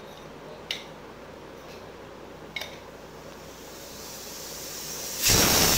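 Stovetop pressure cooker on a lit gas burner: a low steady hiss with two light ticks, then about five seconds in a sudden loud burst of steam hissing out of the cooker.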